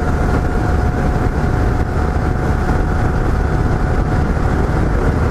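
Yamaha XT 660Z Ténéré motorcycle cruising at highway speed: a steady engine drone under a heavy low rumble of wind and road noise. A faint thin whine runs through it and fades out about four seconds in.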